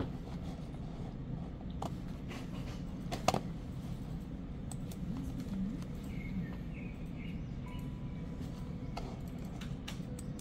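Office room tone: a steady low hum with scattered light clicks, one sharper click about three seconds in, and a few faint short high tones later on.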